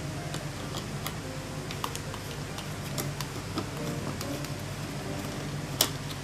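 Screwdriver backing out small screws from a plastic clock-radio case: faint, irregular light clicks and ticks, with a sharper click near the end.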